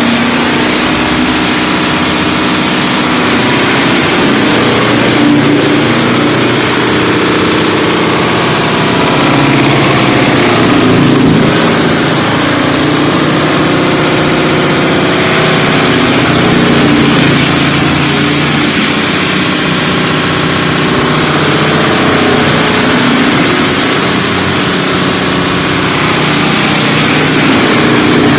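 FD1400-700 wood chipper running loudly and steadily while crushing lumber, a dense mechanical din with a wavering low drone that swells and eases slowly.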